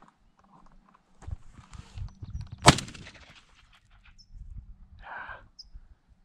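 A single shot from a Beretta A300 Outlander semi-automatic shotgun, a sharp crack about two and a half seconds in with a brief ringing tail.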